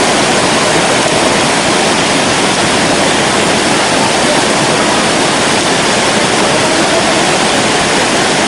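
Athirappilly Falls, a wide river waterfall cascading over rock, giving a steady, loud rush of falling water.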